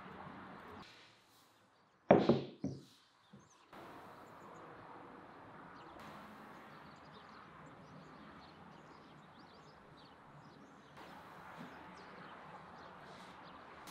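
A quick run of three or four sharp knocks about two seconds in, the first the loudest, over a steady low background hiss.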